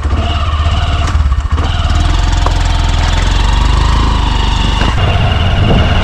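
Motorcycle engine running steadily as the bike rides along.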